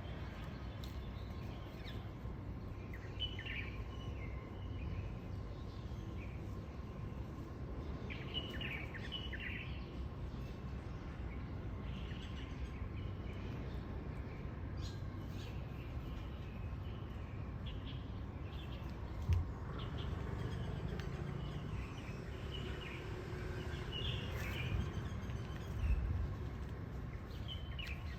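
Small birds chirping a few times over a steady low outdoor rumble, with a couple of soft thumps in the second half.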